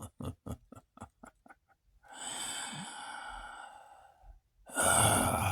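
A man's quick run of short, breathy huffs that fade away, then one long drawn-out exhale, a sigh.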